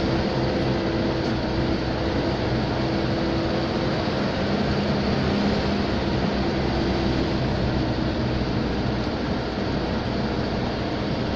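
Steady engine and road noise of a moving vehicle following a bus, with a low engine hum that shifts in pitch now and then.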